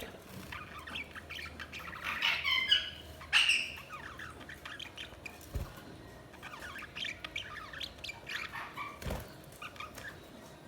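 Budgerigars chirping and warbling in quick, busy chatter, with a few louder squawks about two to three seconds in.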